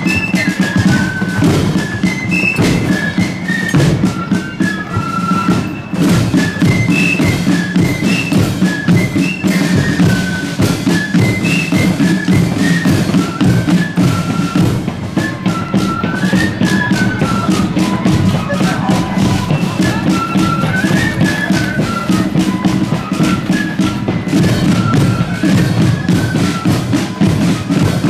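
Marching flute band playing a tune: flutes carry a stepping melody over the steady rattle of side drums.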